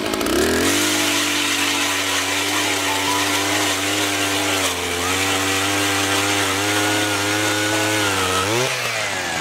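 Gas-powered ice auger's small engine revving up about half a second in, then running steadily at high speed under load as the auger bores through lake ice. Its pitch sags slightly midway and rises sharply near the end.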